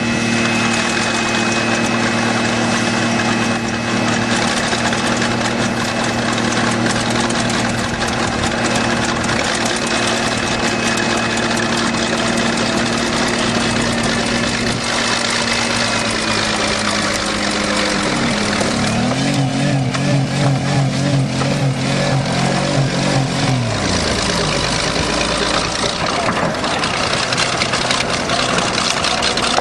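A car's 3.8-litre V6 running steadily at raised revs, its throttle held open by a wedge of wood, under the deeper running of a bulldozer's engine. About two-thirds through the pitch starts to waver and then drops away, with a run of clattering and knocking.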